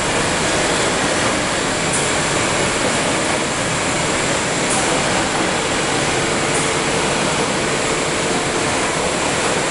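Steady mechanical noise of a running Swiss roll production line: conveyors and rolling machinery in a factory hall, with a faint steady tone joining about six seconds in.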